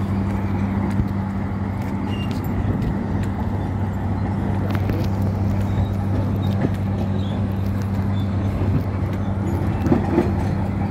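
Steady low mechanical hum, like an engine or machinery running without change, under a constant rush of outdoor noise, with a few faint knocks, the loudest a little before the end.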